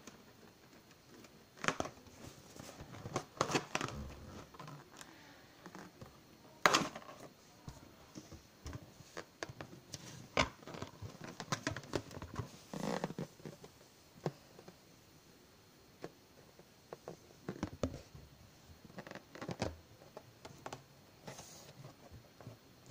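Hands handling an inflated latex balloon: irregular rubbing and squeaking of the rubber under the fingers, with small taps and clicks, the sharpest about seven seconds in.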